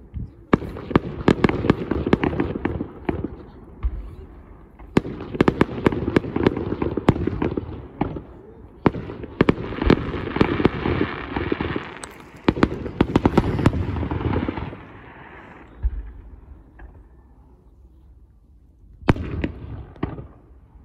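Aerial fireworks bursting in rapid volleys of sharp bangs and dense crackling. The crackle thins out about two-thirds of the way through, and one more loud burst comes near the end.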